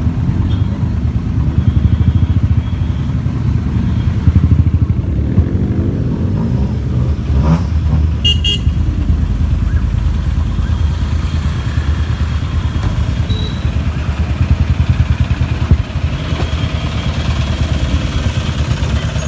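Engines of modified cars with loud aftermarket exhausts running, a deep rumble that rises and falls in loudness. A brief high toot about eight seconds in.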